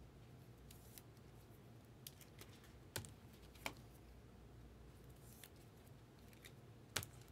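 Near silence with quiet handling of trading cards in clear plastic holders: a few faint clicks and scrapes, the sharpest near the end.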